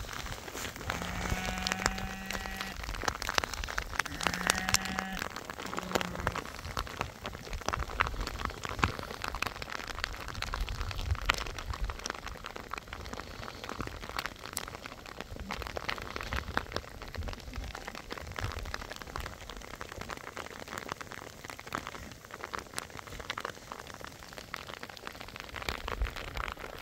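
Heavy hail pelting down in a dense, irregular patter of ticks. Sheep bleat twice in the first few seconds, with a short third bleat just after.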